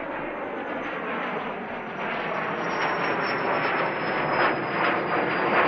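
Jet aircraft engines growing steadily louder, with a thin high whine that slides slowly down in pitch.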